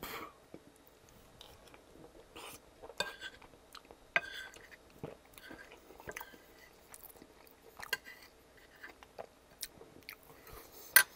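Close-miked chewing of a mouthful of sauced pasta: soft wet mouth clicks and smacks, with the metal fork scraping the plate as the next bite is gathered. A single sharp click comes near the end.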